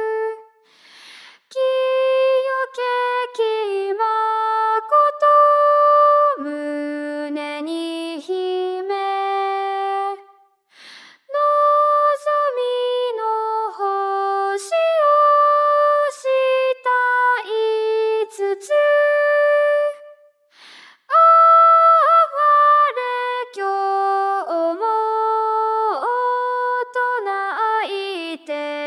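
Synthesized female singing voice (Chis-A voice-synthesis software) singing a Japanese hymn melody unaccompanied, one line at a time with short breaks between phrases.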